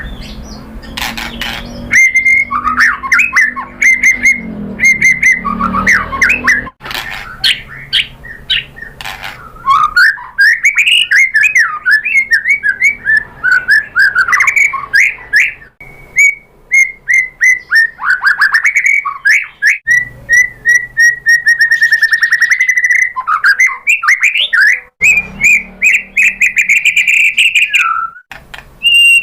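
White-rumped shama (murai batu) singing loudly. It runs a varied song of clear whistles, fast trills and sharp clicking notes, with a few brief breaks between phrases.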